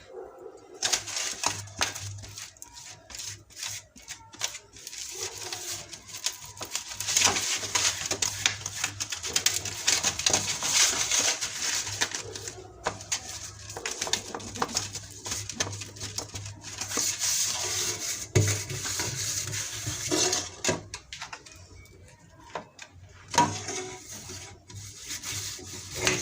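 Kitchen utensil scraping and rubbing against a bowl or tin, with many small clicks, easing off for a few seconds near the end.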